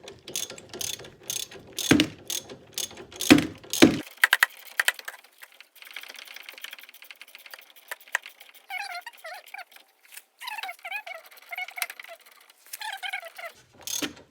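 Socket ratchet wrench being worked on a car's brake assembly, its pawl clicking sharply about twice a second for the first four seconds, then in quicker, softer runs.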